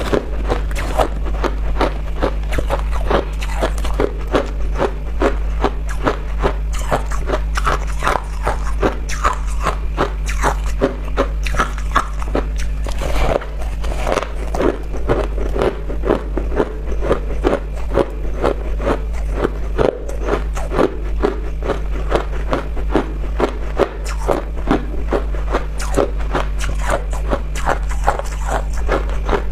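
Packed crushed ice being bitten and chewed: dense, rapid crunching, over a steady low hum.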